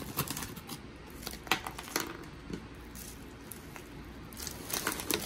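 Crunchy Flamin' Hot Cheetos being dropped onto a cup of instant noodles and handled with a metal spoon: scattered light crackles and clicks, with a cluster of them near the end.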